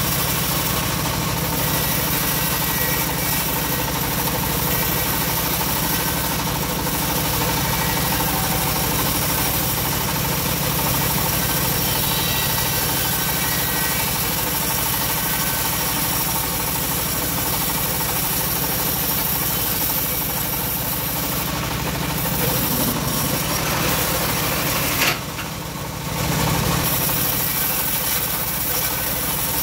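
Homemade bandsaw mill driven by a stationary engine, running steadily as its blade rips a long teak plank into 5×5 rafter stock. Near the end there is a sharp click and the sound drops briefly before the steady running resumes.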